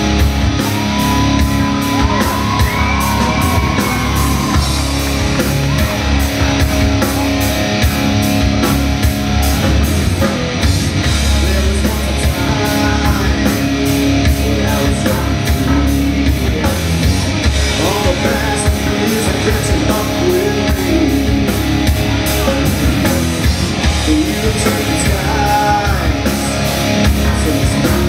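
Live rock band playing loud: distorted electric guitars over a drum kit, with a steady run of cymbal strikes and a pitched line that bends up and down.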